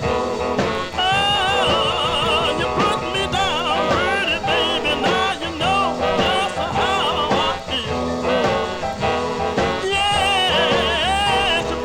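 A song: a singing voice with a wavering vibrato over an instrumental accompaniment.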